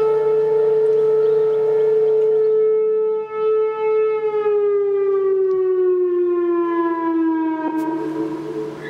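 Outdoor tornado warning siren sounding one long steady tone. Over the second half its pitch slides slowly down as the siren winds down.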